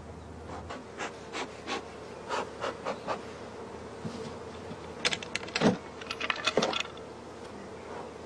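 Honeybees buzzing steadily at an open hive, with a series of short clicks and knocks over it, loudest in a cluster around five to seven seconds in.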